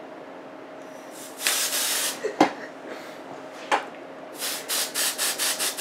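Hair spray bottle spraying onto hair: one longer hiss of about a second, then a quick run of about eight short spritzes near the end. Two sharp clicks come between them; the first is the loudest moment.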